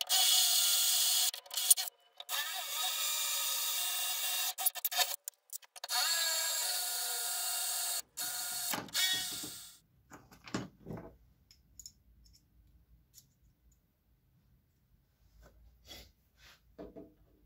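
Cordless drill drilling holes into a steel frame, its motor whining in several bursts that start and stop over about ten seconds. After that come only a few faint clicks and knocks.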